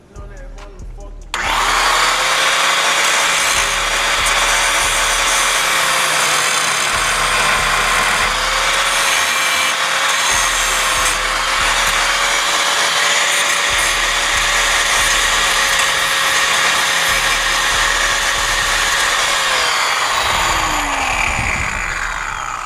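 Angle grinder switched on about a second in and running steadily under load as it grinds out a fastener on the car's frame that is too flat for a ratchet to grip. Near the end it is switched off and its pitch falls as the disc winds down.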